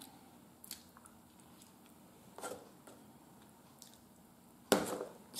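A person quietly chewing and eating food from a fork, with a few faint soft clicks and mouth sounds, and one sharper, louder click near the end.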